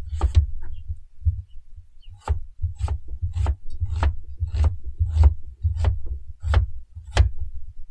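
Knife chopping onions on a cutting board: a steady series of knocks, a little under two a second, each with a dull thud from the board.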